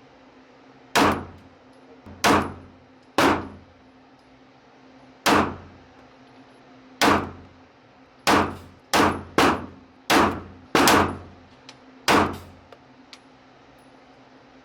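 Gunshots at a shooting range: eleven single shots at an uneven pace, some a few seconds apart and a quicker run of five in the middle, each a sharp crack with a short echoing tail.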